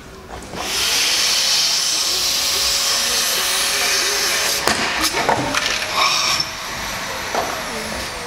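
Vacuum cleaner switching on about a second in and running with a steady rushing hiss and a faint motor whine, sucking the air out of a homemade PVC-pipe vacuum cannon. A few sharp knocks come about halfway through, and the rush eases near the end.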